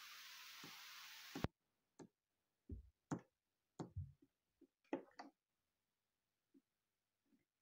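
Faint clicks and knocks of buttons being pressed on a Korg arranger keyboard's panel, after a faint steady hiss that cuts off suddenly about one and a half seconds in.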